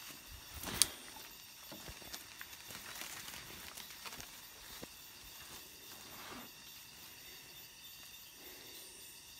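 Footsteps crunching and rustling through dry leaf litter on a forest floor, with one sharp snap about a second in, the loudest sound, and scattered lighter crackles after it.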